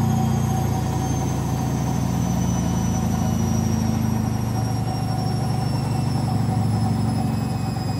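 Bush front-loading washing machine on its final spin at 1200 rpm with an extremely unbalanced load: a steady low rumble and hum from the spinning drum, with a high motor whine that slowly falls in pitch.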